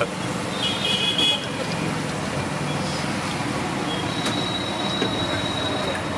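Bhaji frying in a kadhai of hot oil, a steady sizzle, with street traffic behind it.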